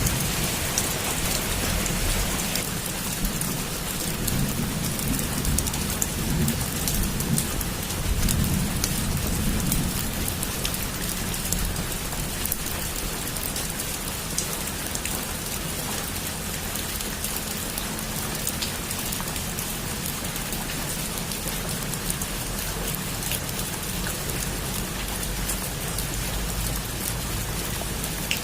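Heavy rain falling steadily on a rooftop, a dense hiss flecked with individual drop ticks. A low rumble swells under it in the first few seconds and dies away by about ten seconds in.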